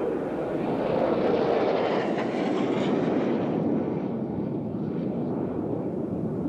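Jet engine noise from an Alpha Jet flying an aerobatic display, swelling and getting brighter about a second or two in, then easing off as the aircraft draws away.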